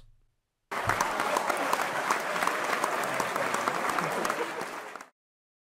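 Canned laugh-and-applause sound effect: a crowd clapping. It starts about a second in and cuts off abruptly near the end.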